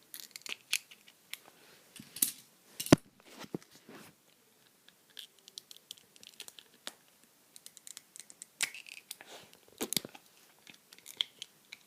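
Small plastic Lego pieces being handled, with irregular sharp clicks and light rattling, the sharpest click about three seconds in.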